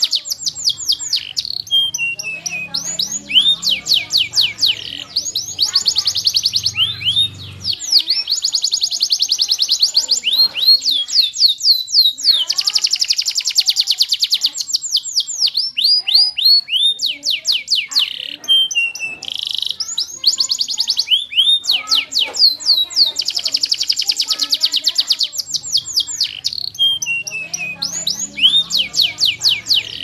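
Domestic canary singing: long runs of fast trills, each a rapid string of repeated high notes, switching from one trill to the next with short breaks, the longest near the middle.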